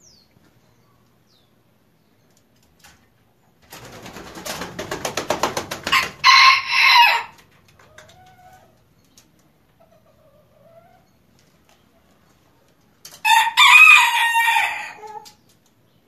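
Bantam rooster crowing twice, the second crow about seven seconds after the first and longer. Just before the first crow, a quick run of wing flaps grows louder for about two seconds.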